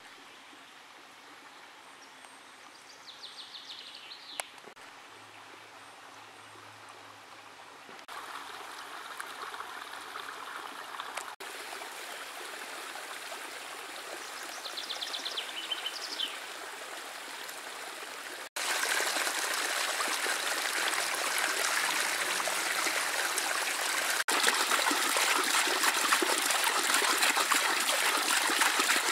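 Shallow spring creek trickling over its gravelly bed, faint at first and louder after about eight seconds. From about two-thirds of the way in comes a much louder, close rush of water spouting from a pipe and splashing onto a small wooden paddle wheel.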